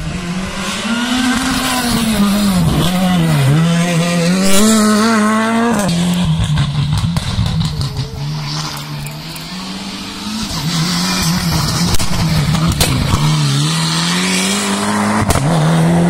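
Rally car driven flat out on a tarmac special stage, its engine revving hard and dropping repeatedly through quick gear changes and lifts as it approaches. It goes past about halfway through, then carries on with more rising revs as it pulls away.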